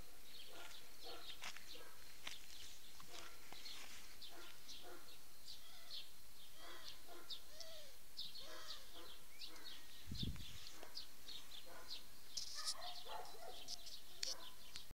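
Birds chirping with many short, repeated calls over a steady hiss. A single low thump comes about ten seconds in.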